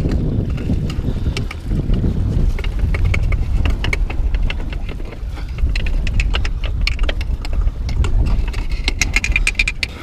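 Strong wind buffeting the microphone with a continuous low rumble, over many small sharp clicks and scrapes of hands and clothing against the breakwater rocks.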